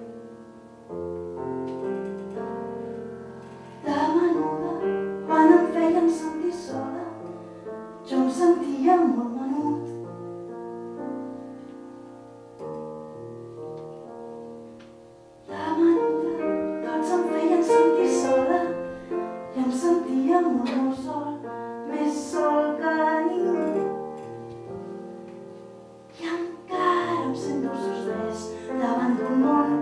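Live piano playing a slow accompaniment to a woman singing with vibrato. The voice comes in about four seconds in, drops away for a few seconds about halfway through, then returns over the piano.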